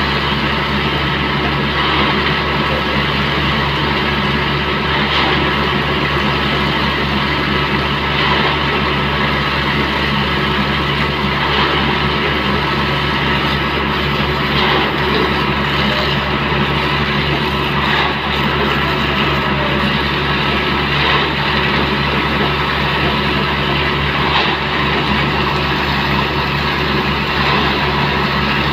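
Concrete mixer truck's diesel engine running steadily, with a constant hiss of a water jet spraying across the mixer drum's hopper.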